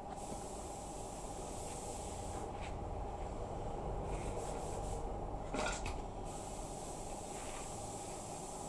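Steady background noise with a faint constant hum and a few light ticks, broken by one brief clack about five and a half seconds in.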